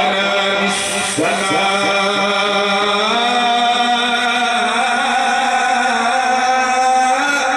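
Male Quran reciter chanting in melodic tajweed style, drawing out long held notes; the pitch steps up about three seconds in and is held.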